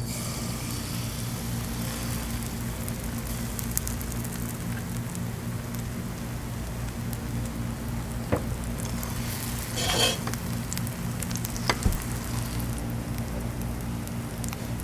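Spicy stir-fried chicken (dak-galbi) sizzling steadily as it is stirred in a hot pan, with a few sharp taps of the utensils, one about ten seconds in a little longer than the rest. A steady low hum runs underneath.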